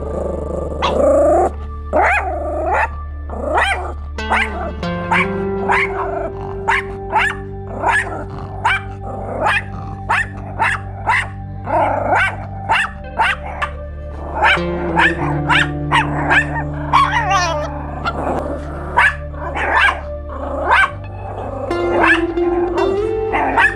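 Chihuahuas barking in a rapid, steady run of sharp barks at a squirrel, over background music of long held chords.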